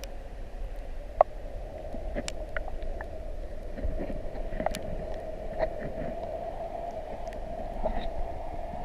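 A motor running at a steady pitch with a low rumble underneath, and scattered small clicks and taps over it.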